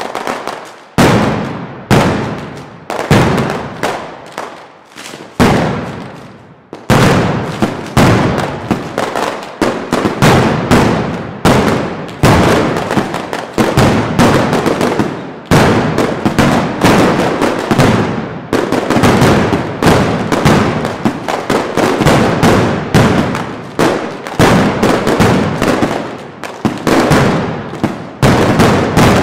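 Mascletà: strings of firecrackers hung on overhead cords going off in a rapid, continuous barrage of loud bangs, surging in waves about once a second.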